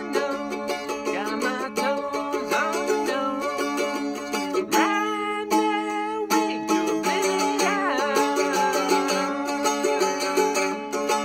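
Gibson mandolin being strummed and picked, a continuous run of quick notes with a few sliding pitches.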